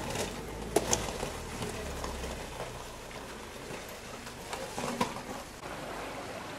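Steady outdoor background hiss with a few sharp clicks, two close together about a second in and one about five seconds in.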